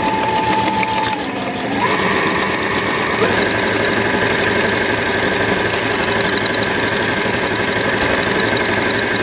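Brother electric sewing machine stitching through paper, its motor and needle running in a fast, even rhythm. About a second in it slows briefly, then speeds back up with a rising whine and runs steadily at a higher speed as the foot pedal is pressed harder.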